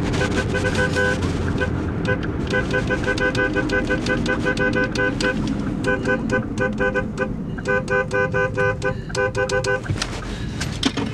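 Car horn honked in long runs of rapid short toots, several a second with brief breaks, over the low drone of a moving car.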